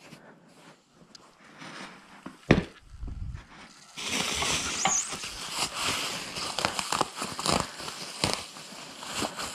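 Bubble wrap and plastic packaging crinkling and rustling as wrapped parts are handled in a cardboard box, with one loud thump about two and a half seconds in. The crinkling turns loud and continuous from about four seconds in.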